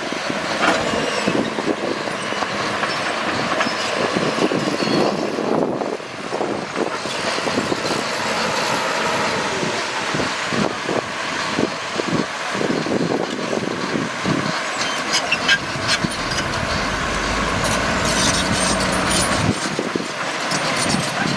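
Bulldozer working, its engine running under many irregular metallic clanks and knocks from the tracks and blade.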